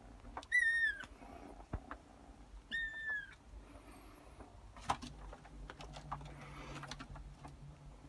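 Calico kitten giving two short, high-pitched mews about two seconds apart, each dipping at the end, amid light taps and scuffs of paws on the carpeted cat tree.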